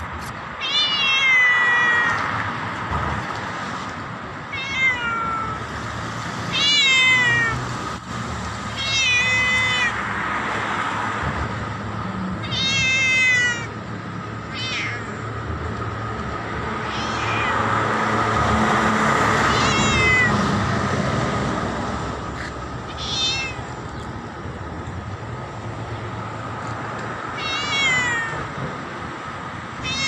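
Domestic cat meowing loudly and repeatedly: about ten drawn-out meows a few seconds apart, each sliding down in pitch at the end, over a steady background hum.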